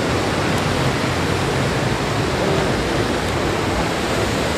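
Steady rush of splashing fountain water, an even hiss with no separate events in it.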